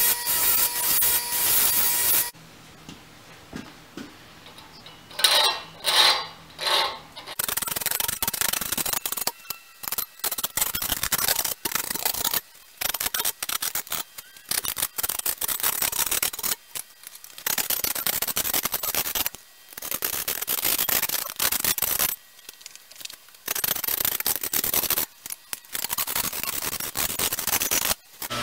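Repeated rasping strokes of a hand file working along the teeth of a buck saw blade clamped in a bench vise, with short pauses between runs of strokes. It opens with a bench buffing wheel running against the steel blade, which cuts off about two seconds in.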